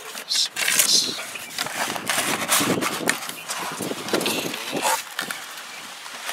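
Cardboard box being handled and opened: an irregular run of rustling, scraping and sharp knocks.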